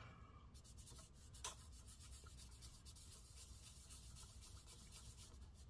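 Faint rubbing of a paper towel scrubbed over the copper heatsink plate of a MacBook Air, wiping off old thermal paste, with one slightly louder stroke about one and a half seconds in.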